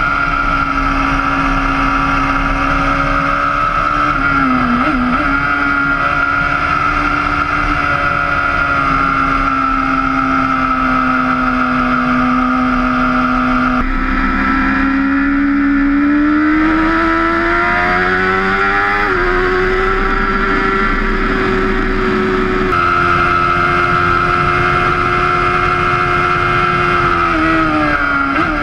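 BMW S1000RR inline-four engine heard onboard at high revs, with wind rush. The note holds steady, dips briefly about four seconds in, changes abruptly about halfway, then climbs in pitch for several seconds as the bike accelerates before holding high.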